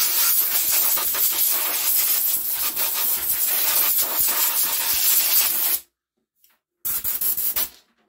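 Compressed-air blow gun hissing in a long steady blast that cuts off suddenly about six seconds in, then a second short blast, blowing the trimmer's carburettor clean.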